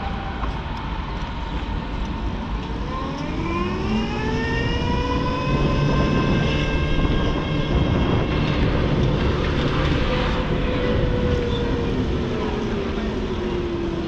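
A vehicle's motor whine that rises smoothly in pitch over about three seconds, holds steady, then slowly falls, over steady traffic noise.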